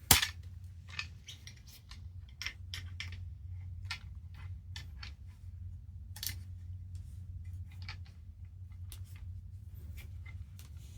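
Light metallic clicks and taps of airsoft rifle parts being handled during disassembly, one sharper click at the very start, then scattered small knocks over a steady low hum.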